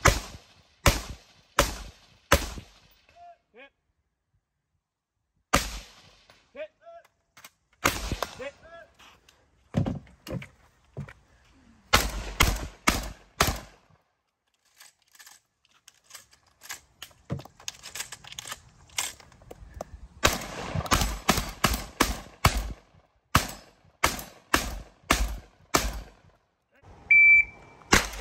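Rapid gunfire in strings: rifle shots first, then shotgun shots, some strings fired about two a second. Near the end a short electronic shot-timer beep sounds, the start signal, and shooting begins again at once.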